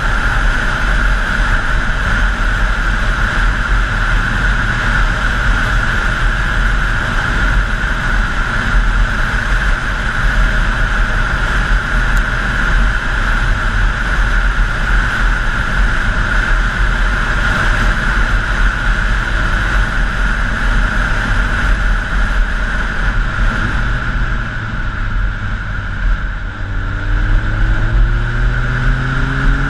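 Wind rushing over a helmet-mounted camera with a Honda CBR1000F's inline-four engine running at steady road speed. Near the end the engine note drops back briefly, then climbs in pitch as the bike accelerates.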